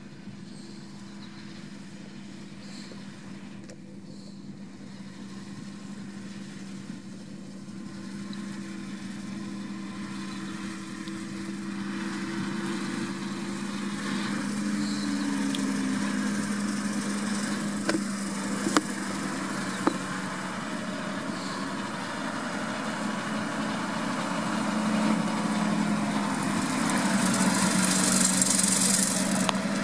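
John Deere 6215R tractor's six-cylinder diesel engine running steadily as it pulls a fertiliser spreader, growing louder as the tractor comes closer and passes by. A high hiss rises near the end.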